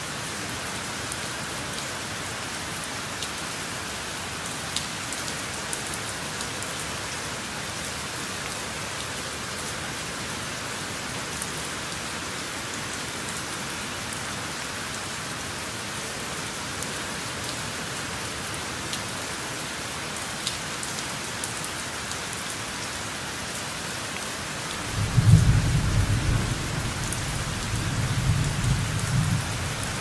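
Steady rain falling, with scattered drops ticking. About 25 seconds in, a peal of thunder starts low and loud and rolls on for several seconds. It is the loudest sound.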